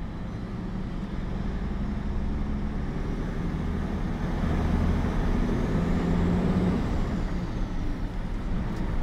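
Mercedes-Benz mixer truck's diesel engine and road noise heard from inside the cab while driving, getting louder over the first few seconds as it pulls and then holding steady, with a faint whine that rises and falls near the middle. The truck is on a road test for a reported lack of pick-up.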